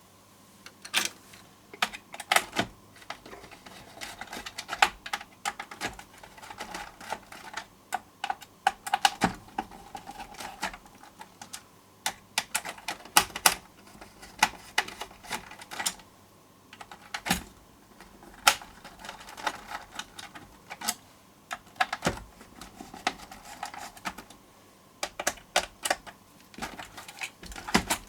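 Irregular hard plastic clicks and clacks from a ZX Spectrum Plus computer case being handled and worked on, some coming in quick runs with short pauses between.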